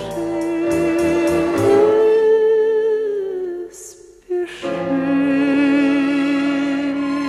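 Slow song's closing music: a long held note with vibrato that rises a little and falls back, a short break about four seconds in, then another sustained note.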